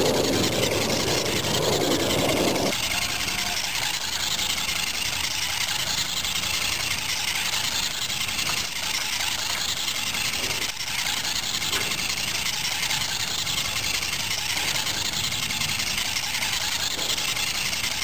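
Battery-powered toy bird's small electric motor whirring steadily as its plastic wings flap while it circles on a thread. Fuller and a little louder for the first two to three seconds, then even.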